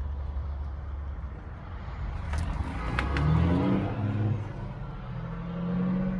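Tractor diesel engine running steadily, then revving up about halfway through, with a couple of sharp clicks just before the engine speed rises.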